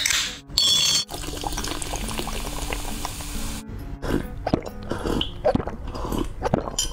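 Ring-pull of an aluminium soda can popped open with a hiss, the carbonated soda fizzing, then a run of gulps as it is drunk from a glass. Background music plays throughout.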